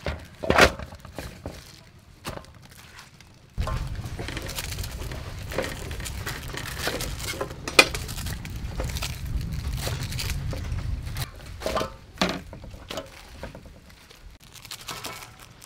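Fresh leafy green stems being snapped and torn apart by hand, with the leaves rustling, in a run of sharp snaps and crackles. A low rumble sits underneath from about four seconds in until about eleven seconds.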